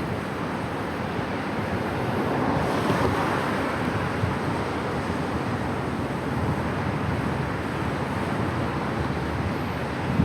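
Wind rushing over the microphone of a camera riding on a moving bicycle, with street traffic noise underneath; the rush swells briefly a few seconds in.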